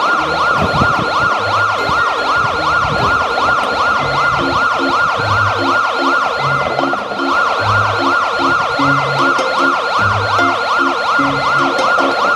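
Telolet-style bus horn sounding a siren-like wail that rises and falls about four times a second, over music with a low bass beat.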